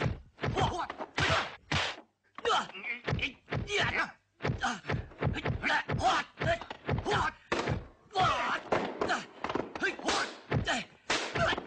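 Kung fu film fight sound effects: a fast run of punch, kick and block impacts, about two to three a second, mixed with the fighters' shouts and grunts.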